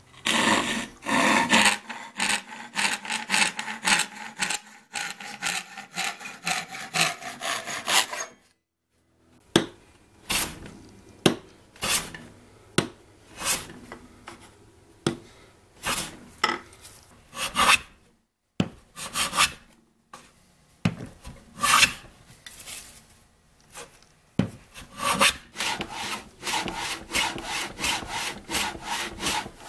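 Japanese ryoba pull saw cutting a hardwood board clamped in a bench vise, with quick rasping strokes for about eight seconds. After a short break come separate single strokes of hand tools on wood, roughly one a second, which quicken into a dense run of strokes near the end.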